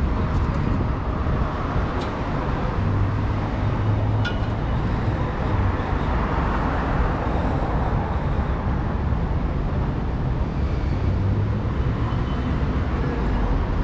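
Steady city street ambience: a continuous low rumble of road traffic, with a couple of faint ticks about two and four seconds in.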